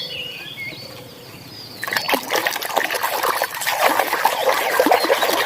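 Water splashing and trickling as a muddy plastic toy is rinsed by hand. The splashing starts about two seconds in and goes on busily, with many small splashes and drips.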